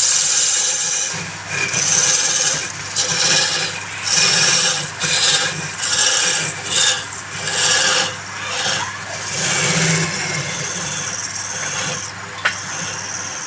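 Wood spinning on a lathe being cut or sanded in repeated passes, a scraping hiss swelling and fading about once a second over the steady hum of the lathe motor.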